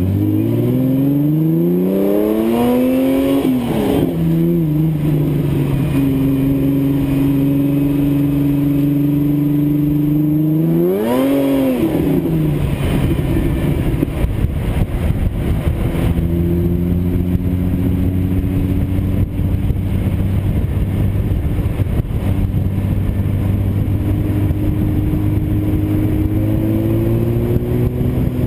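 1959 Lotus Seven's engine driving on the road. Its revs climb for a few seconds and drop about four seconds in, hold steady, climb and drop again around eleven seconds, then settle at lower revs, rising slightly near the end.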